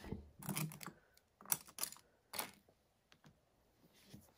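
Light clicks and taps of plastic nail swatch sticks and a gel polish bottle being picked up, handled and set down on a desk mat. There are about half a dozen short clicks in the first two and a half seconds, then only faint handling.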